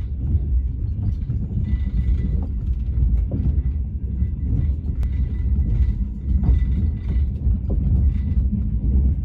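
Moving sleeper-train carriage rumbling and rattling, heard from inside the car, with scattered knocks and clicks over a steady low rumble.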